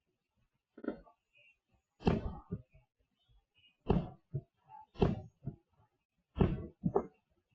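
Aerial fireworks shells bursting in a string of booms, about one a second, some coming in quick pairs, with short silences between them.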